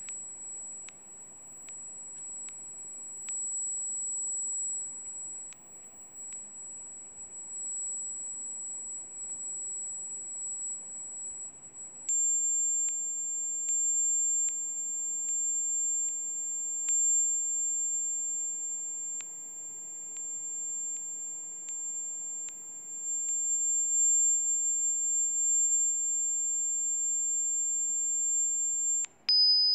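A high, pure electronic sine tone, one of a sequence of Rife frequencies played for flu. It holds steady, steps slightly lower and louder about twelve seconds in, then near the end cuts out for a moment and switches to a noticeably lower tone. A faint hiss lies underneath.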